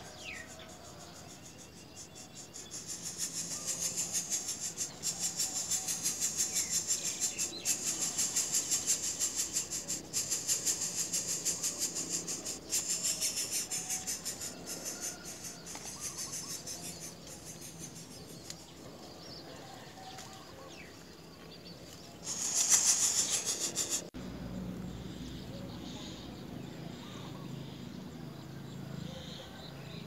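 High-pitched insect buzzing in rapid, even pulses, loudest in the first half and fading away. Near the end comes a short, loud hissing burst, then a low steady background hum.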